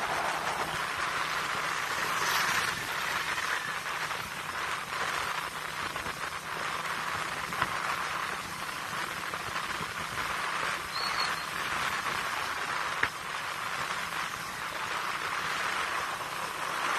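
Steady rushing wind and road noise on a riding motorcycle's camera microphone, a hiss with a couple of brief knocks.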